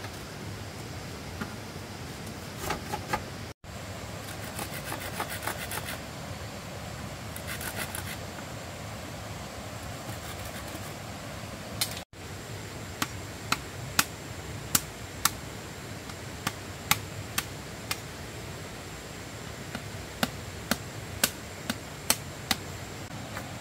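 Machete working bamboo: scraping and rubbing in short spells, then a run of sharp strikes about once or twice a second in the second half, over a steady hiss.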